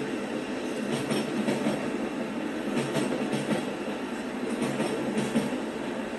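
Amtrak passenger train rolling past, its cars running steadily with scattered wheel clicks over the rail joints.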